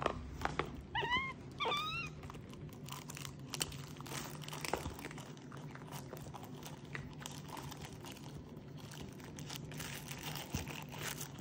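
Capuchin monkey giving two short, high-pitched chirping calls about a second in, each rising then dipping in pitch. Scattered soft clicks and rustling follow.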